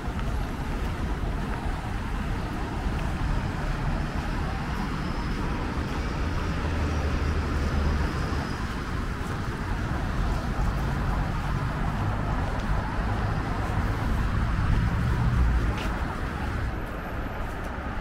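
Busy city street traffic: a steady rumble of passing cars and other vehicles, with engines swelling louder as vehicles go by, the loudest about fifteen seconds in.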